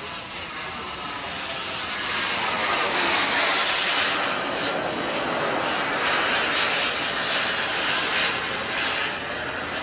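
Radio-controlled Feibao Mirage model jet flying past: a steady rushing whine that grows louder to a peak about three to four seconds in as the jet comes closest. Its high whine falls slightly in pitch as it passes, then the sound eases off a little.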